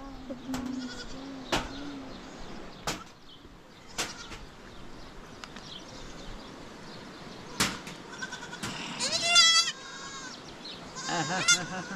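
Penned sheep or goats bleating twice: a long, loud call about nine seconds in and a shorter one near the end. A few sharp knocks or clicks come earlier.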